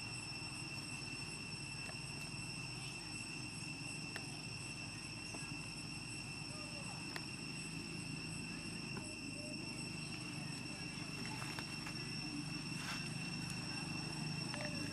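Steady outdoor background: a constant high-pitched whine over a low rumble, with a few faint clicks.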